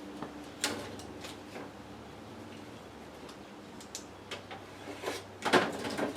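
Scattered light clicks and knocks of small hardware and parts being handled while searching for screws, with a louder clatter about five and a half seconds in. A low steady hum runs underneath.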